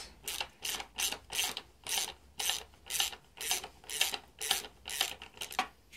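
Ratchet wrench clicking steadily, about four strokes a second, as a nut is worked off an exhaust manifold stud on a BMW M52TU inline-six.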